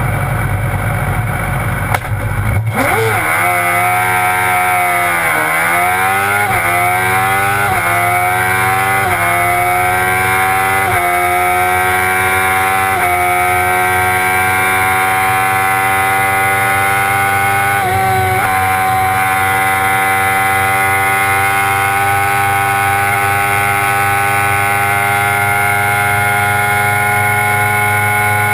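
Silver Car S2 race car's engine, heard from inside the cockpit. It is held at revs on the start line, launches about two and a half seconds in, and accelerates hard through a string of quick upshifts over the next ten seconds. Then it runs flat out at high revs in sixth gear, with a brief lift about eighteen seconds in.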